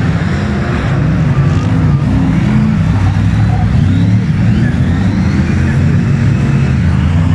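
Several F1 stock cars' V8 engines revving through a bend, their notes rising and falling and overlapping one another.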